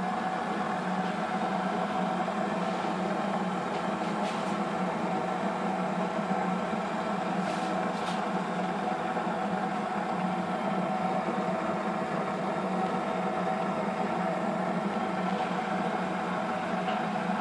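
Steady mechanical hum with several fixed tones, unchanging throughout, with a few faint clicks in the middle.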